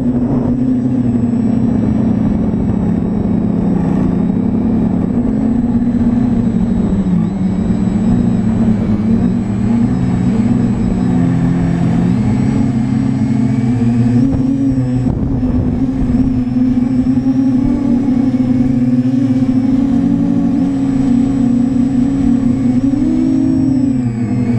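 TBS Discovery Pro quadcopter's brushless motors and propellers buzzing loudly, heard from the camera on board. The pitch wavers up and down as the throttle changes in flight.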